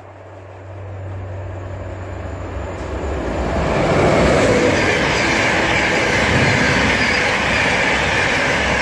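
Express passenger train running through the station at speed without stopping. A low hum grows as it approaches, then a loud, steady rush of wheels on rail reaches full strength about four seconds in, as the leading vehicle passes and the coaches follow.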